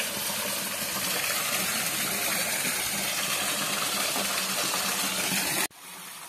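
Small waterfall splashing steadily into a rock pool, a constant rush of falling water. It cuts off sharply near the end to a quieter, more distant rush of the stream.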